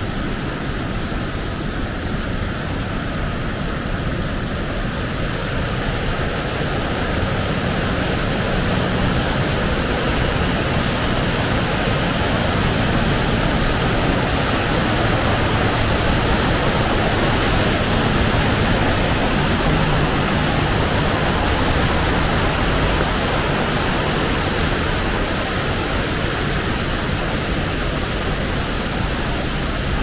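Creek water spilling over a low weir onto rocks: a steady rushing that grows somewhat louder through the middle.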